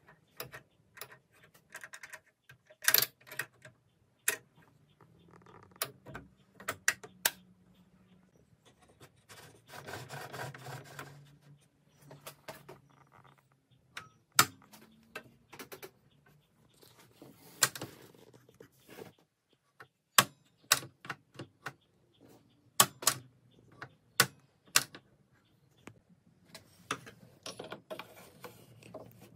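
Scattered clicks and knocks of plastic and metal parts of a DeWalt DWE7485 compact table saw being handled: the rip fence with its lock lever, the stand and the mitre gauge being put in its storage spot. About ten seconds in there is a longer stretch of rubbing.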